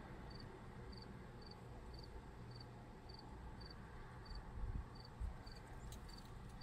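A cricket chirping faintly and steadily, about two short chirps a second, over a low background rumble. Two soft low bumps come a little past the middle.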